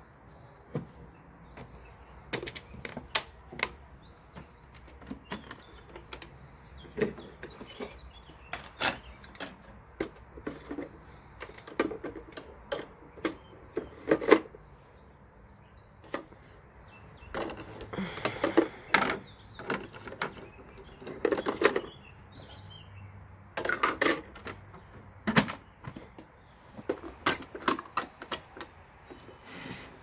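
Hard plastic clicks, knocks and rattles from toy appliances being handled: a toy washing machine's porthole door shutting, then plastic dishes going into a toy dishwasher's wire rack in short rattling bursts. Birds chirp faintly during the first few seconds.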